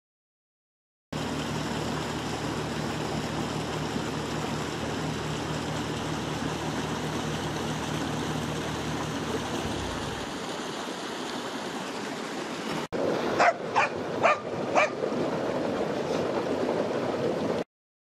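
Bobcat skid steer engine running beside a rushing creek until about ten seconds in, then only the creek's rushing water. After a brief break, a dog barks four times over the water.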